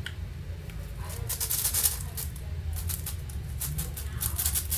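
An Angstrom AoFu WRM 7x7 speedcube being turned fast during a solve: its plastic layers clack and rattle in quick runs of clicks from about a second in.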